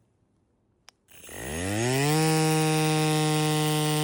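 FLEXTAIL Ultra-Mini battery-powered air compressor switching on: a click, then its small motor spins up with a rising whine about a second in and settles into a steady, loud buzzing hum.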